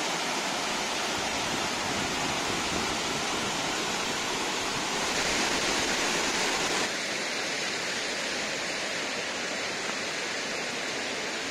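Waterfall spilling over rock ledges: a steady rush of falling water, a little louder from about five to seven seconds in, then softer after a sudden change near seven seconds.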